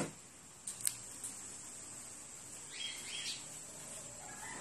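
A sharp knock, then a few faint high clicks, and a pair of short high chirps about three seconds in, over a faint steady hiss.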